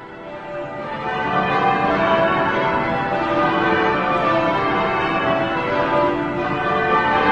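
Church bells pealing, many bells ringing over one another, fading in over the first second or two and then ringing on steadily.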